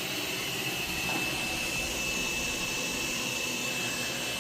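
Xiaomi X20 Max robot vacuum running while it mops: a steady motor and fan hiss with a thin, steady high whine.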